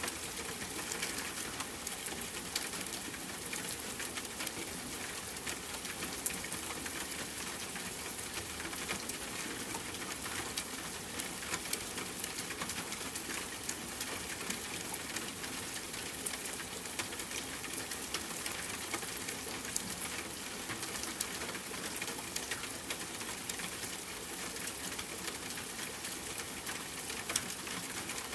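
Steady rain falling, many close drops pattering on a surface, with an occasional louder drip.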